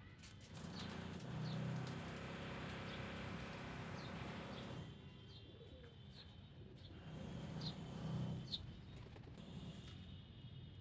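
Pigeons cooing in two bouts, about a second in and again around seven seconds in, with short high chirps scattered between.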